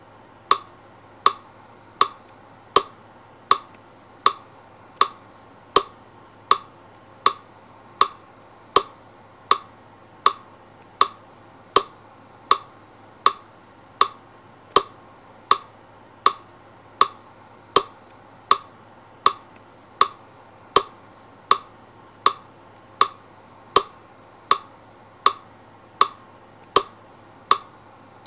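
Sharp, identical ticks repeating evenly, a little under one and a half per second, over a faint steady low hum.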